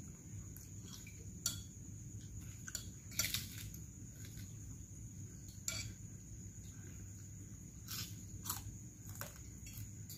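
Spoons clinking and scraping on plates as several people eat, a few sharp clicks scattered through, the loudest cluster about three seconds in. A steady high chirring of crickets runs underneath.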